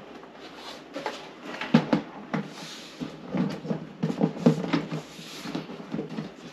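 Plastic egg-incubator lid being set down onto its plastic base and worked into place: a run of plastic knocks and clatters, loudest about two seconds and four and a half seconds in.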